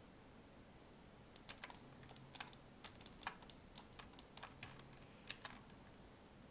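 Faint computer keyboard keystrokes: scattered, irregular clicks beginning a little over a second in and stopping shortly before the end.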